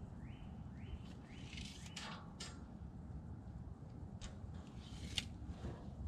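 A bird calling a run of short, identical rising notes, about two a second, that stops about two seconds in. A few sharp clicks come later, the loudest about five seconds in, over a low steady rumble.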